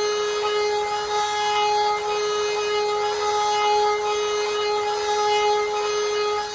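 Genmitsu 3030 Prover Max desktop CNC router's spindle running with a steady whine while its cutter mills aluminum, with cutting noise over the tone.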